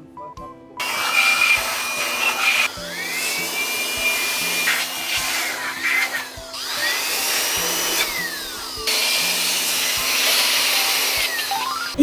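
Handheld electric air blower blowing over a washing machine's disassembled outer tub, starting about a second in. Its motor whine rises and falls several times under a loud rush of air.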